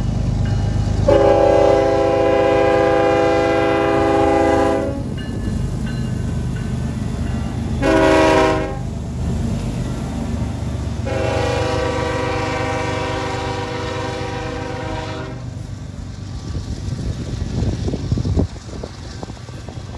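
Union Pacific freight locomotives sounding a multi-note air horn in three blasts, long, short, long, the end of a grade-crossing warning, over the steady rumble of the diesels. The horn then stops and the double-stack container cars roll past with a continuous rumble.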